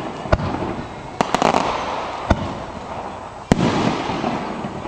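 Aerial fireworks bursting overhead: a string of sharp bangs, several close together in the first second and a half, another about halfway, and the loudest a little past three seconds in, with a rolling rumble between them.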